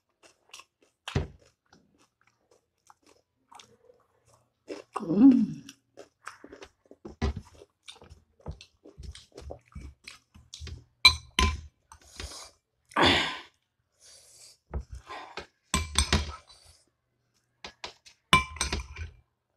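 A person chewing and crunching a mouthful of rice and curry, eaten by hand. The mouth sounds come in an irregular run of short smacks and crunches, with a few longer, louder bursts.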